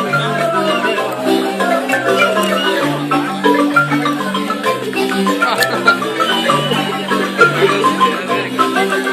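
Marimba music playing: a repeating pattern of low bass notes under a busy, fast-moving melody.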